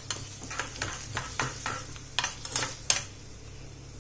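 Steel spoon stirring a tadka of mustard seeds, cumin, curry leaves and a dried red chilli in hot oil in a small tadka pan: a run of clinks and scrapes against the pan over a faint sizzle. The stirring stops about three seconds in, leaving the sizzle.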